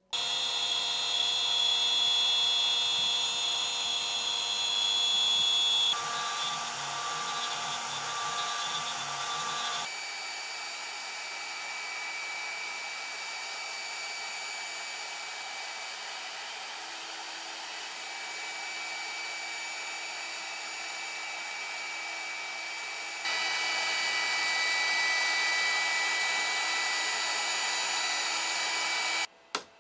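CNC router spindle running at high speed as a small cutter mills a wooden handle blank: a steady high whine with several fixed tones. The sound jumps abruptly in level and tone a few times, about six, ten and twenty-three seconds in, and stops suddenly near the end.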